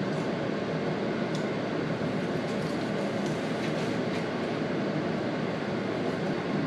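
Steady fan-like whooshing noise throughout, with a few faint scrapes and clicks as a knife and tongs slice a cooked steak on a plastic cutting board.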